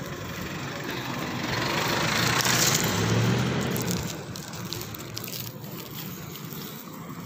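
A motor vehicle driving past, its engine and tyre noise swelling to a peak about two and a half seconds in, then fading away over the next couple of seconds.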